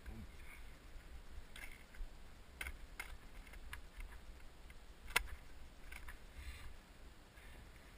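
Faint clicks and knocks from skis moving over a thin crust of snow on frozen grass stubble, with short soft scrapes and a low rumble of movement under them. The sharpest knock comes about five seconds in.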